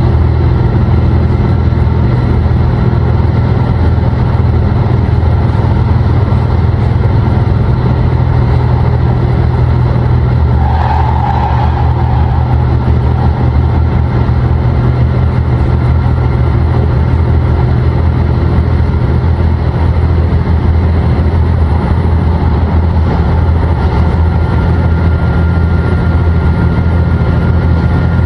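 Chizu Express HOT7000-series diesel railcar engine running steadily under load, a loud, even low drone heard from the driver's cab as the limited express runs on.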